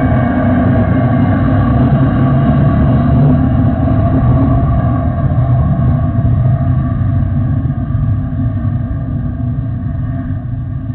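Jet airliner's engines running as it rolls along the runway: a loud, steady rumble with a steady whine over it, easing slightly near the end.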